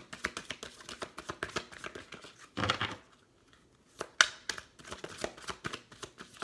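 A deck of tarot cards being shuffled by hand: a quick run of papery card flicks and slides. A louder slap of cards comes just before a brief pause about three seconds in, and then the shuffling starts again.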